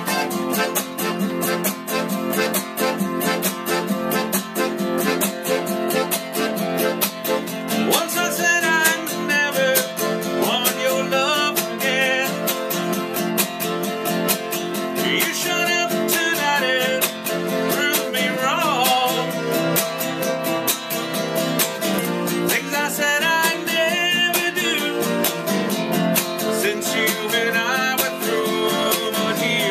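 Live acoustic band music: a Hohner Corona button accordion playing sustained chords and melody runs over a quick, even strummed acoustic guitar.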